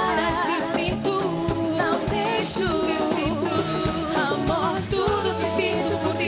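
Two women singing a duet with a live band, their voices wavering with vibrato over bass and a steady drum beat.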